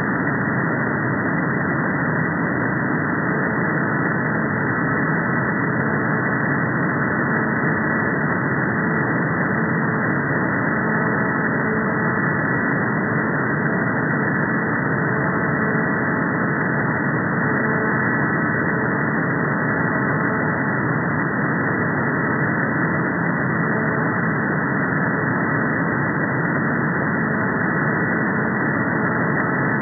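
Upper-sideband shortwave receiver audio tuned to 39.0 MHz: steady hiss carrying a Chinese meteor radar's pulsed signal, heard as faint evenly spaced tones in a 430 Hz comb with weaker 215 Hz combs between them. The sound stops sharply above about 2 kHz at the receiver's filter.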